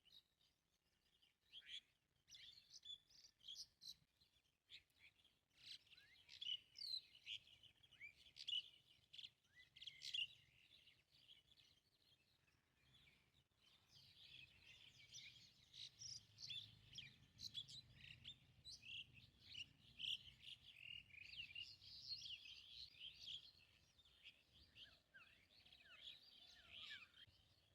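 Small birds chirping: many short, high calls and quick sweeps, scattered at first and overlapping more densely from about halfway through.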